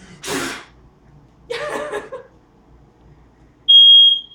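A smoke alarm starts beeping near the end: a loud, high, steady tone, set off by smoke from a birthday cake that caught fire. Before it come a short breathy rush and a brief voice.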